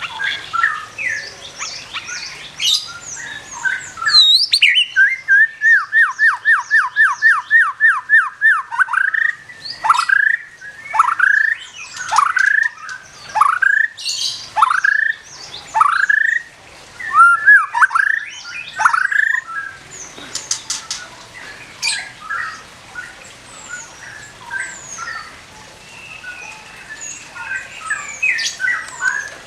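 Murai batu (white-rumped shama) singing: a fast run of repeated down-slurred whistled notes, then slower, louder down-slurred whistles about one a second, giving way to softer varied chirps and twitters in the second half.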